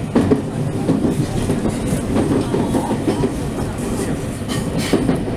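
Interior of a JR West 223 series electric train's cab while it rolls through a station throat: steady wheel-and-rail rumble with irregular clacks as the wheels cross rail joints and points.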